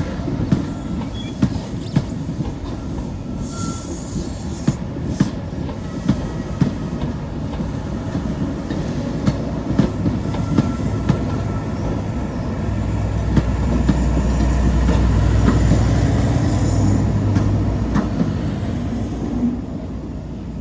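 Passenger train rolling past, its wheels clicking over rail joints with a faint squeal. A deeper rumble swells in the second half and fades toward the end.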